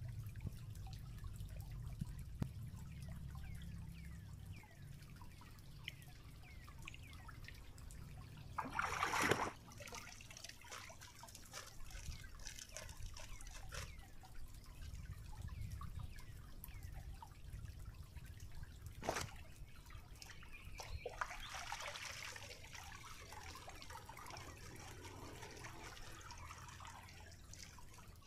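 Shallow stream water trickling and dripping, with a short louder burst about nine seconds in and a sharp knock near nineteen seconds. In the last third there is a longer stretch of splashing and dribbling as a cloth is dunked and worked in the water.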